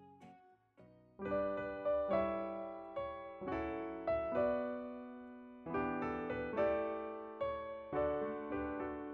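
Background music: slow piano chords, starting about a second in, each struck and left to ring.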